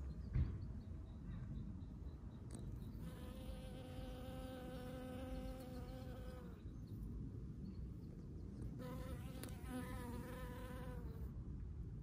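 A bee buzzing in flight around buttercups in two passes, each a steady even-pitched hum of a few seconds, the first starting about three seconds in and the second about nine seconds in. There is a short thump near the start, over a low steady rumble.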